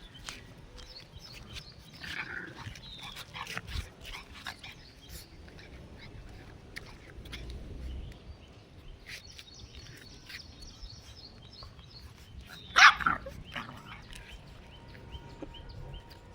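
Two-month-old boxer puppy barking now and then, with one loud bark about thirteen seconds in.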